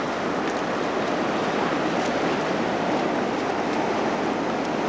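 Ocean surf washing onto the shore, a steady noise of breaking waves.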